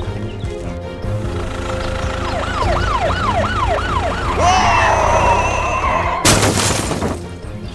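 Police siren sound effect in a fast rising-and-falling wail, over background music, followed near the end by a brief burst of hiss.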